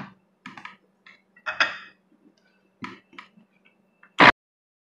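Plastic lid being fitted onto a blender jar: light clicks and knocks, a few of them. About four seconds in, a brief, very loud burst as the blender is switched on, cut off abruptly.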